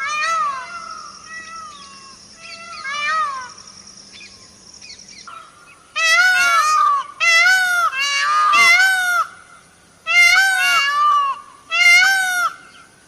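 Indian peafowl (peacock) calling: repeated loud wailing calls that rise and fall. They are fainter and overlapping for the first few seconds, then five loud calls follow in quick succession from about six seconds in.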